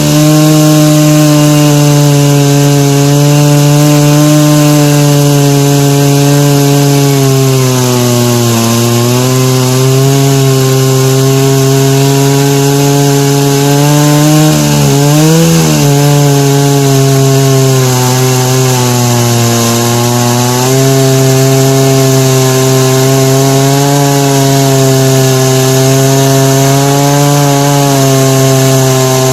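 Jonsered 70E two-stroke chainsaw running at full throttle while ripping lengthwise through an ash log in a chainsaw mill. The engine pitch sags under the load a few times, about a third of the way in and again about halfway, then recovers.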